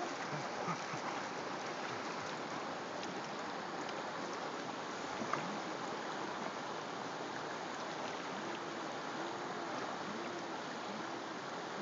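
River water rushing steadily past the rocky bank, with a few faint splashes from dogs wading in the shallows.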